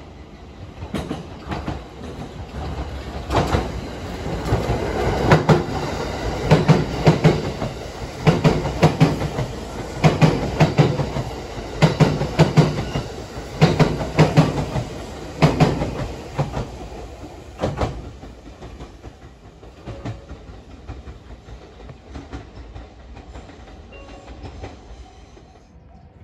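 Limited express electric train running past a station platform: its wheels click over the rail joints in pairs as each bogie goes by. The sound builds over the first few seconds, is loudest through the middle, and fades away after about eighteen seconds.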